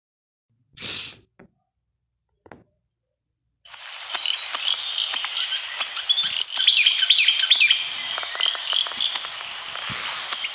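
A 1992 field recording of a natural soundscape: many small birds chirping and calling over a steady hiss, cutting in abruptly a few seconds in. A short bump comes about a second in, before the recording starts.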